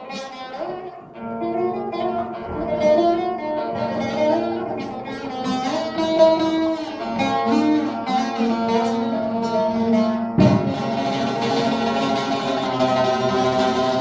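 Music played on plucked string instruments, with a sharp onset about ten seconds in where the sound becomes fuller and denser.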